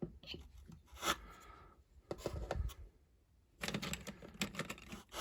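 Plastic Lego pieces and figures clicking and rattling as they are handled: scattered single clicks, then quick clusters of clicks in the second half.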